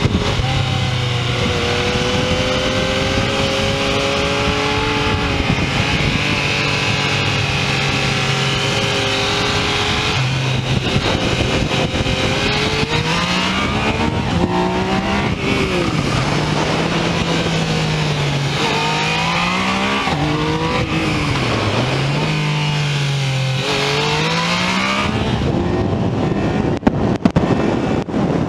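Yamaha MT-09 SP's inline-three engine running under load at track speed, with steady wind rush over the microphone. The engine note holds steady for several seconds, then repeatedly rises and falls as the rider accelerates out of corners and rolls off into them; near the end the engine fades under wind buffeting.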